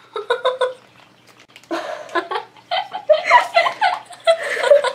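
Girls giggling and laughing excitedly: a quick run of short giggles at first, then longer, high-pitched laughter.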